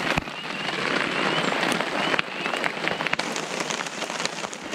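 Steady rain pattering on a surface, with a few sharp knocks scattered through it.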